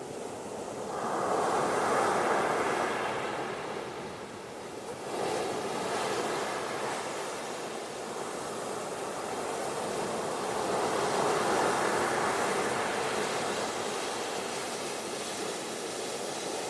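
Small, calm ocean waves breaking and washing up a beach, the surf swelling louder about a second in, again around five seconds in, and once more near the middle.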